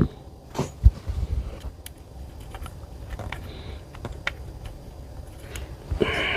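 Scattered light clicks and taps of small metal airgun parts being handled and worked as a stubborn fitting is threaded in, with a couple of sharper knocks near the start and about a second in.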